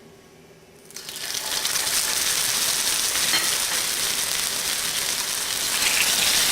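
Shredded-potato hash brown patties frying in hot oil in an electric wok. The sizzling starts suddenly about a second in and then holds steady.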